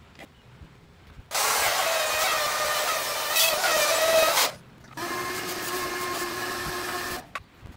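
Ryobi router cutting through plywood along a straightedge for about three seconds, its pitch wavering a little under load, then stopping. After a short pause a quieter, steadier machine hum runs for about two seconds from a shop vacuum clearing the sawdust.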